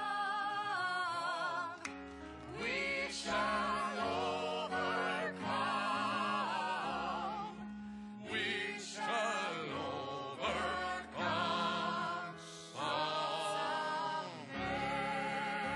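Two women and a man singing a song together with strong vibrato, in phrases broken by short breaths, accompanied by piano.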